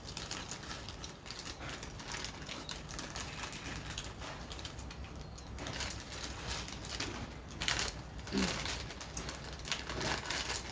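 Plastic potato-chip packets crinkling and rustling as they are handled, with crunching of chips being eaten; the crackling comes in denser bursts around the middle and near the end as a packet is torn open.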